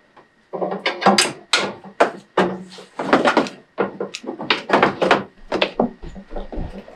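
Heavy winch power cables being handled and pulled along a Jeep's sheet-metal fender: a run of irregular knocks, scrapes and rubs.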